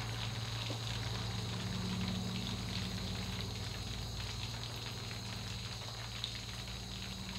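Chicken frames deep-frying in a wok of hot oil, sizzling and crackling steadily, with a low steady hum underneath.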